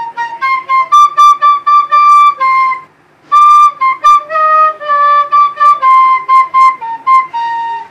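An end-blown flute plays a simple, halting melody of short high notes at a beginner's level. The notes pause briefly about three seconds in, and the last note near the end is held longer.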